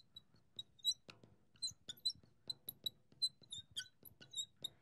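Marker squeaking on the glass of a lightboard while words are written, a quick irregular string of short, high squeaks several times a second.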